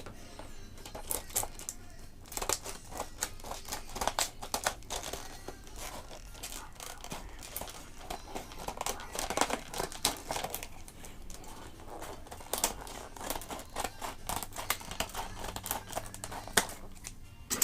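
Retail packaging of a 1/64 diecast wheel-and-tire pack being torn and crinkled open by hand: an uneven string of crackles and tearing sounds.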